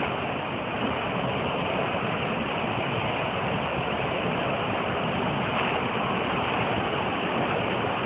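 Athirappilly waterfall's water pouring down, heard as a steady, even rushing noise.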